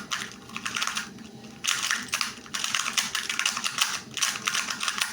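A 2x2 Rubik's cube being scrambled: its plastic layers are turned fast, with rapid clicking and clattering in bursts of about a second and short pauses between.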